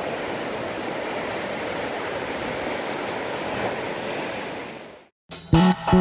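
Surf breaking and washing up a beach, a steady rush of waves that fades out about five seconds in. Guitar music starts just before the end.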